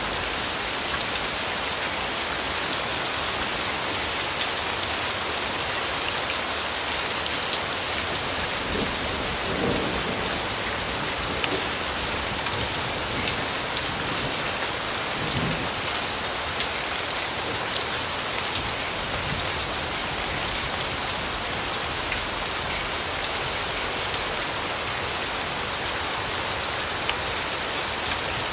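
Steady, even rain falling on a surface, a continuous hiss with scattered drop patter. Two brief low rumbles come through, about a third of the way in and again around halfway.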